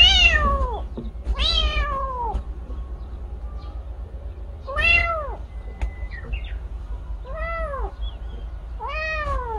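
Young tabby kitten, separated from its mother, meowing: five high-pitched cries a second or more apart, each rising then falling in pitch.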